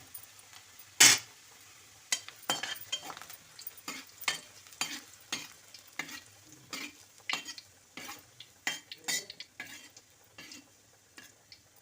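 A spatula stirring and scraping chopped onion, garlic and ginger frying in oil in a kadai, in quick irregular strokes with a faint sizzle underneath. A single sharp knock of the utensil on the pan about a second in.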